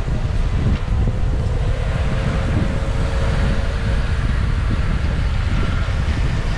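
Wind buffeting the microphone over a steady low rumble of road noise, as heard from a camera on the move.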